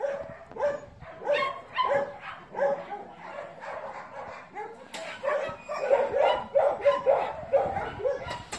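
Small dog barking at a cat, a steady run of short barks about one to two a second, coming faster from about halfway through.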